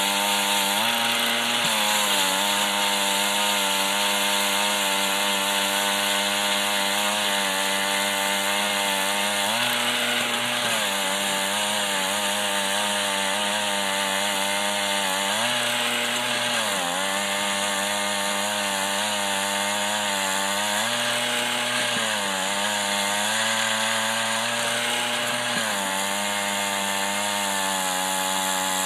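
Gas-powered ice auger running under load as it bores down through ice over two feet thick, its engine pitch rising and dropping back several times as the bit cuts.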